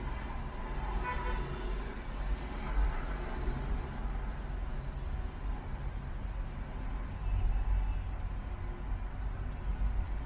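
A car driving through city traffic: a low, steady road and engine rumble, with the hiss of other vehicles around it rising and falling.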